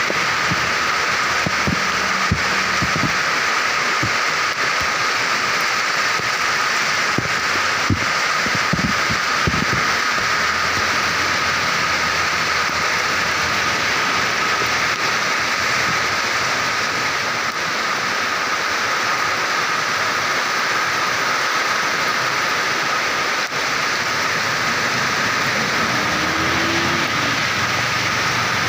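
Heavy rain falling steadily, a dense even hiss, with wind gusts buffeting the microphone as low irregular rumbles in roughly the first ten seconds.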